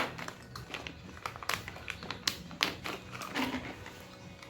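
Small parts and packaging of a TIG torch accessory kit being handled: scattered light clicks and taps.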